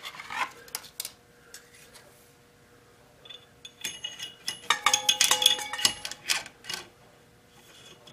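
Metal-on-metal clinking and light rattling as gong wire is worked by hand into the slot of a steel mandrel on a stopped lathe. There are a few sharp clicks early, then a denser run of ringing clinks in the middle.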